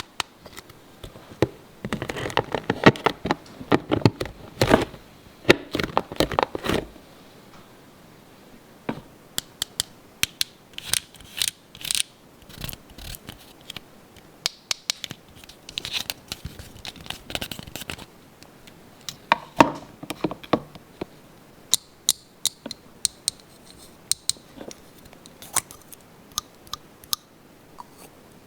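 Toy pieces and plastic packaging handled close to the microphone: dense crinkling and scraping about two to seven seconds in, then scattered sharp clicks, taps and short scrapes.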